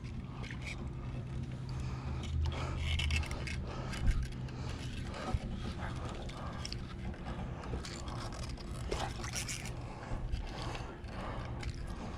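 Irregular scraping and clicking of a mini fishing rod and its reel being worked while a big fish is on the line, with a low steady hum early on.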